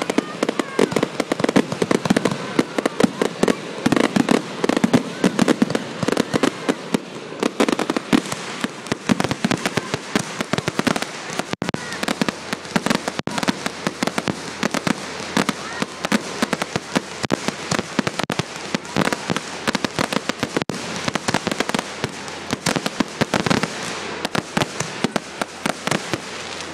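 Fireworks crackling and popping in a rapid, unbroken string of small bangs. The bangs are densest and heaviest for the first several seconds, then thin out a little.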